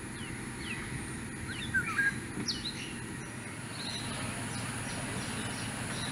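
Small birds chirping in short rising and falling calls, busiest in the first couple of seconds, over a steady outdoor background hiss.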